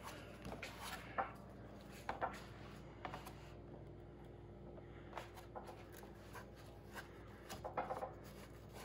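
Soft, intermittent rubbing and light scraping of fingers smoothing and blending sculpting clay onto a taxidermy manikin's head and neck.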